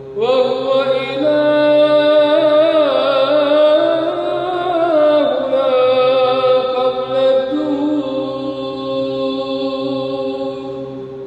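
A male deacon chanting a Byzantine hymn to the Theotokos in Arabic, drawing out one long melisma on a single syllable over a steady drone. The melody climbs in the first seconds, winds up and down, then settles lower and holds about halfway through.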